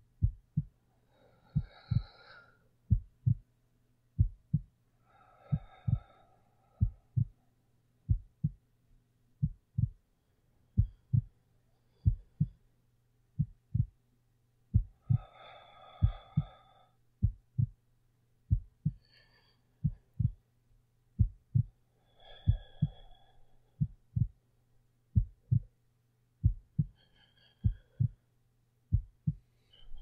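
Heartbeat: steady, slow, paired low thumps. Soft, slow breathing rises over them now and then, as in sleep.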